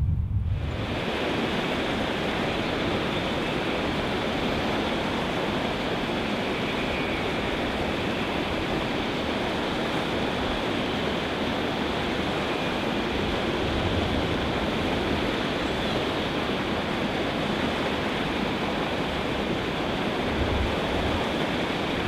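Water pouring over a canal lock's curved overflow weir into a churning pool below: a steady rushing that sets in about half a second in.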